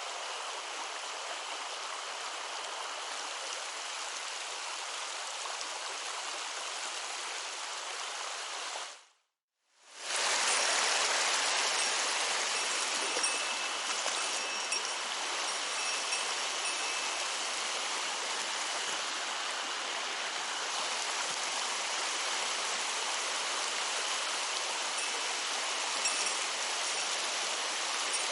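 Mountain stream water running in a steady rush; it cuts out for about a second some nine seconds in and comes back a little louder.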